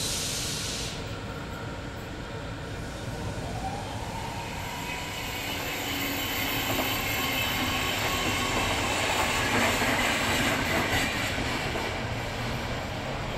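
Swiss SBB passenger train of coaches rolling past on curved track, the wheels rumbling with a thin high squeal on the curve. It grows louder and is loudest about ten seconds in.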